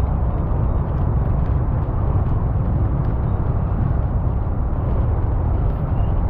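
Steady low rumble of a car on the move: road and wind noise, with a few faint ticks.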